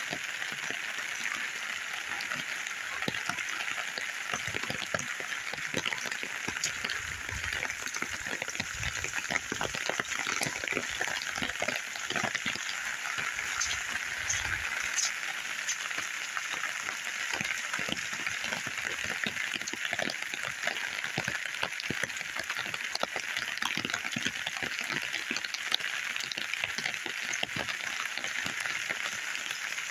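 Steady rain falling, a dense patter of drops close to the microphone.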